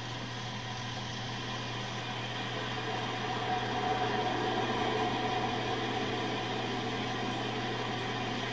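A vehicle's engine idling steadily, left running with nobody in it, under a faint sustained higher tone that swells a few seconds in.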